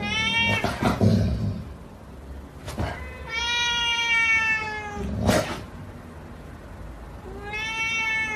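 Cat meowing three times: a short meow at the start, a long drawn-out meow in the middle, and another starting near the end, with a few brief soft noises between them.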